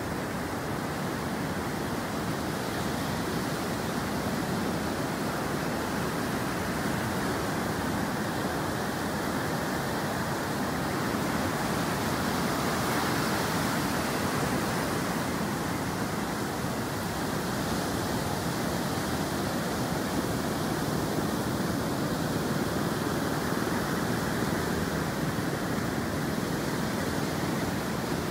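Sea surf breaking continuously on a sandy beach: waves of about 1.2 to 1.5 m arriving about three seconds apart. Together they make a steady rushing wash that swells slightly about halfway through.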